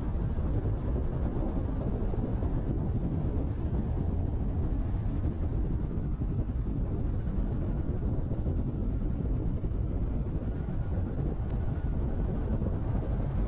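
Steady low rumble of a car driving at road speed, picked up by a camera mounted on the outside of the roof: tyre and road noise mixed with wind on the microphone.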